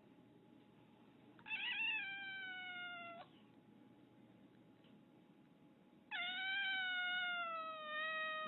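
Black-and-white domestic cat meowing twice. The first meow, about a second and a half in, is short and wavering. The second, from about six seconds in, is longer and drawn out, falling slowly in pitch.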